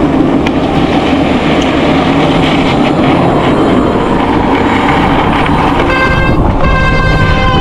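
Heavy wind buffeting the microphone during a bike ride, with rough rumbling throughout. Near the end come two short, steady high-pitched toots.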